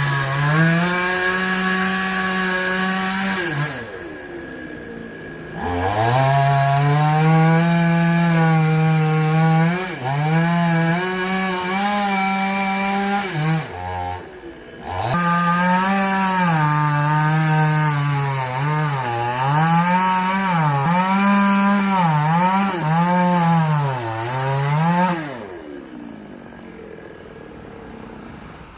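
Chainsaw run at full throttle while cutting wood, its engine note sagging and recovering over and over as the chain loads up in the cut. The throttle drops off briefly twice, about four seconds in and about fourteen seconds in, and near the end the engine winds down to a low idle.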